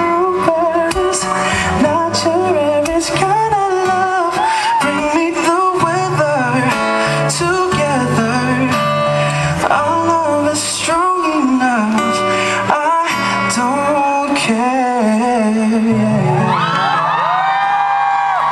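Male vocalist singing live to his own strummed acoustic guitar. Near the end he holds a long, wavering note over the guitar.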